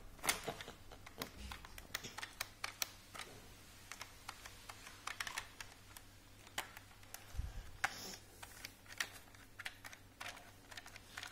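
Irregular plastic clicks and taps from hands handling a Nerf Alpha Strike Flyte CS-10 toy blaster and its 10-dart clip.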